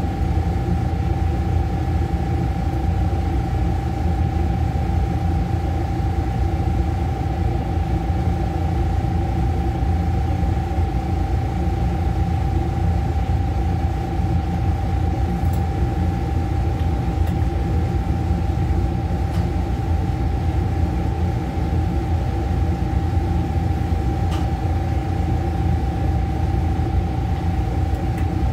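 Steady machinery hum: a low rumble with a constant high whine running unchanged, with a few faint ticks.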